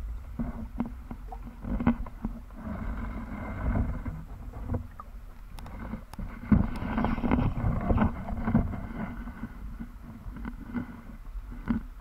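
Muffled underwater noise picked up by a submerged camera: a steady low rumble of moving water with frequent irregular knocks and clicks. Stretches of hissing, rushing water come about two and a half seconds in and again past the middle.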